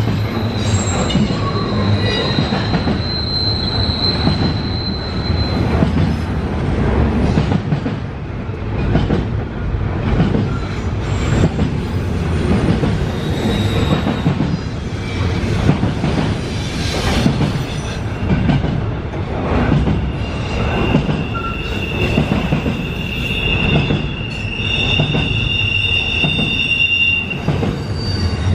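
Double-stack container train's well cars rolling past: steady rumble with wheel clatter over the rail joints. Thin, high wheel squeal rings out over the first several seconds, and again as a two-pitched squeal over the last third.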